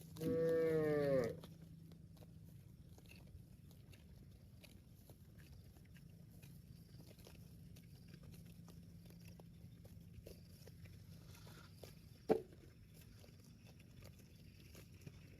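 A cow gives one short moo, about a second long, rising and falling in pitch. Later there is a single brief sharp knock.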